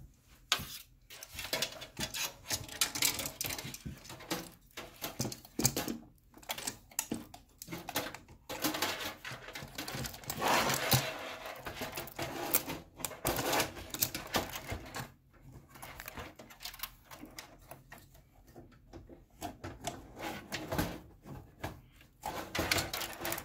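Irregular clicks, knocks and rustling of hardware being handled inside a desktop PC case as a liquid cooler's fan-mounted radiator is worked into place.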